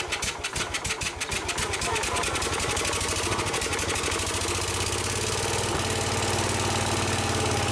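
Case 222 garden tractor engine turning over on the starter and firing unevenly, then catching a few seconds in and settling into a steady run. It is running on starting fluid sprayed into the intake, at its first start after sitting for many years.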